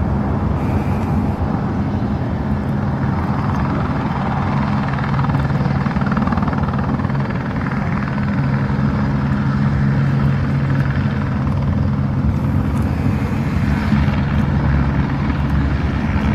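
Royal Australian Navy Squirrel (Eurocopter AS350) helicopter running: a steady, loud drone of its single turbine and rotor, holding level with a few low tones.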